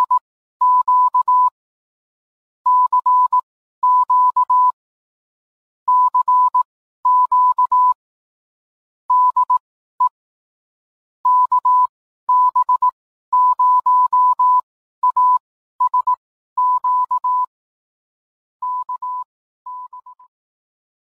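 Morse code tone: one steady beep keyed on and off in short and long elements, bunched into letter-like groups with gaps between them, the last groups fainter and trailing off near the end.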